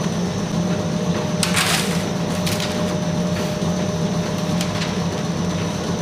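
A steady low machine hum runs throughout, with a short rustle about one and a half seconds in and a few fainter ones later as large paper sheets are handled.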